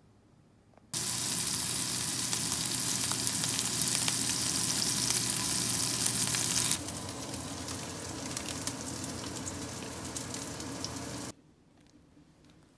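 Salmon fillet frying in oil in a pan with onion slices, mushrooms and garlic cloves: a steady sizzle. It starts abruptly about a second in, drops slightly in level near seven seconds, and cuts off sharply about eleven seconds in.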